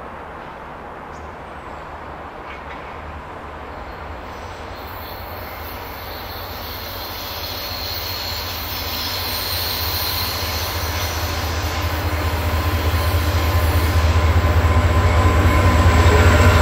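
VIA Rail passenger train led by two EMD F40PH diesel locomotives approaching: a low diesel rumble grows steadily louder as the train nears, with wheel and rail noise building over the last few seconds.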